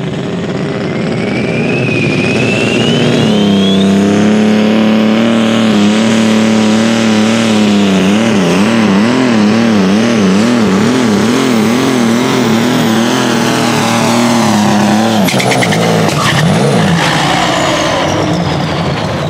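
Diesel engine of a John Deere super stock pulling tractor at full throttle under the load of the sled. A whine rises as the turbo spools up, then the engine holds a steady high-rpm note whose pitch wavers rapidly up and down through the middle of the pull. About fifteen seconds in, the engine note cuts off abruptly, leaving falling whines as it winds down at the end of the run.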